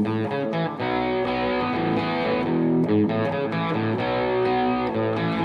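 Guitar being played: a short rock riff of ringing, sustained chords and notes, with a slightly distorted tone.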